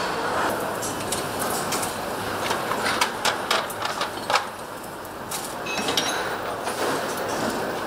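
Steady factory hum with a run of sharp metallic clicks and rattles, mostly from about two and a half to four and a half seconds in, as steel roller timing chains are hung onto the crankshaft's sprockets.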